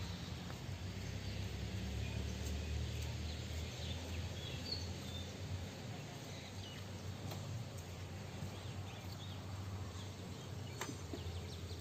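Outdoor ambience: a steady low hum with short, faint bird chirps scattered over it.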